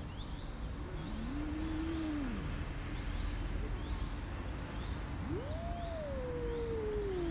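A cat's long, drawn-out threat yowls in a standoff over food: one rising and falling about a second in, then a longer one from about five seconds in that climbs high and slides slowly down.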